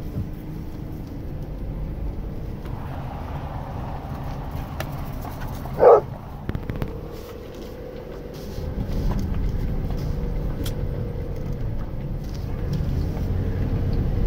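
Car running slowly on a gravel track, heard from inside the cabin as a steady low rumble that grows louder from about nine seconds in. A single dog bark cuts through about six seconds in.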